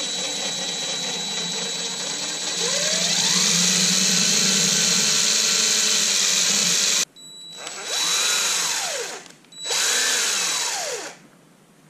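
Cordless drill with an eighth-inch bit boring through a solid rubber grommet. The motor runs for about seven seconds, rising in pitch partway through, and cuts off suddenly. Then come two short spins that each rise and fall in pitch as the trigger is squeezed and let go.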